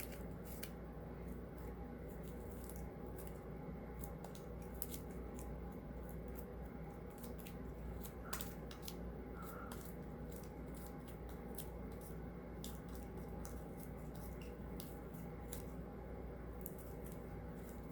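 Sticky slime being kneaded and pulled apart by hand, with many small irregular clicks and crackles as it sticks and tears, over a steady low hum.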